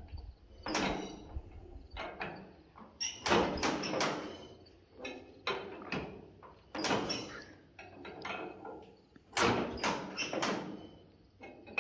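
Irregular knocks and clunks, several coming in quick clusters of two or three, with no steady running rhythm.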